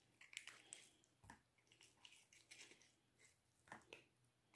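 Faint, scattered wet clicks and squishes of king crab legs being picked apart by hand and eaten.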